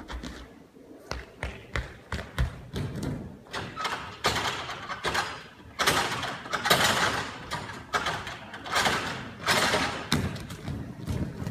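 Irregular thuds and knocks of a person moving through a gym obstacle course: body contact on a floor mat, hands and feet on wooden wall bars, and a landing on a crash mat, with louder bursts in the middle.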